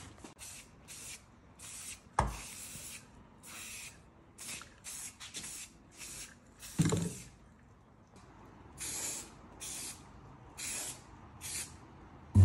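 Aerosol spray paint can hissing in many short bursts with pauses between them. Two sharp thumps cut in, about two seconds in and again near seven seconds.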